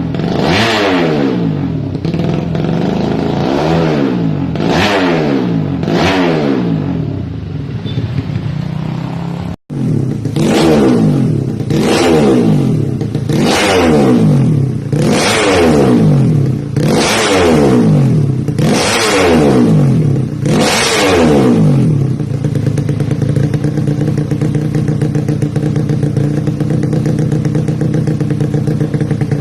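Yamaha Jupiter Z motorcycle's single-cylinder four-stroke engine revved in repeated throttle blips, each a quick rise and fall in pitch about once a second. It cuts out sharply for an instant about ten seconds in, then settles into a steady idle for the last seven seconds or so.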